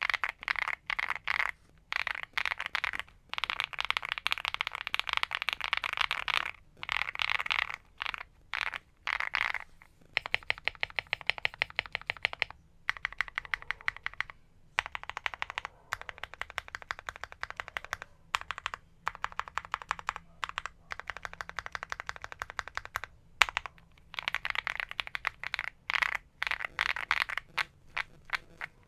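Typing on a Monsgeek M1 mechanical keyboard fitted with Akko Cream Yellow V3 linear switches, a "very creamy" keystroke sound. The keystrokes come in fast bursts of rapid clicks broken by short pauses.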